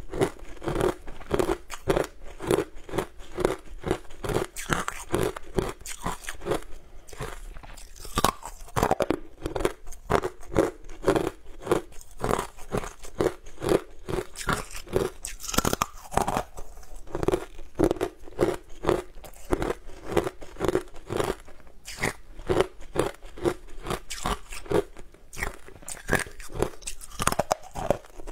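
Close-miked crunching and chewing of a crumbly, powdery green frozen block, bite after bite in a quick steady rhythm of about two to three crunches a second.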